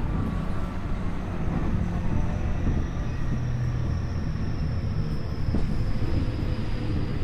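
Tokyu 5050 series electric commuter train running, heard from inside the car: a steady rumble of wheels on rail, with a faint high whine that slowly falls in pitch.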